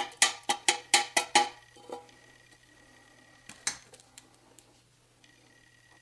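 Tin can clanking as it is handled on a workbench. There is a quick run of about seven sharp, ringing metallic knocks in the first second and a half, then a couple more knocks about three and a half seconds in.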